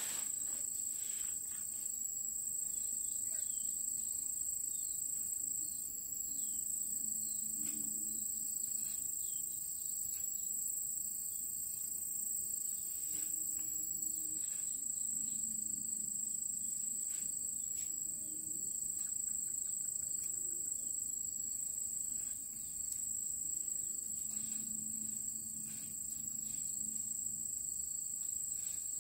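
Steady, high-pitched insect song: one continuous shrill tone that never breaks, with a few faint scattered ticks.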